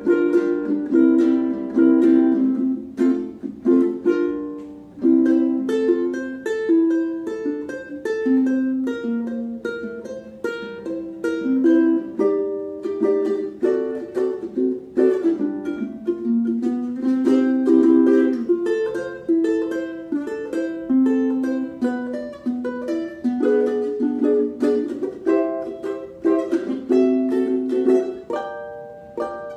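Maestro Island Series UT-MR SB G ukulele played fingerstyle: a jazzy chord-melody of plucked single notes and chords, recorded raw on a phone with no editing.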